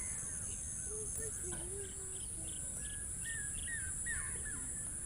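Steady high-pitched insect chirring over outdoor ambience, with short, repeated bird calls and a run of quick pips in the middle. Faint far-off voices can be heard now and then.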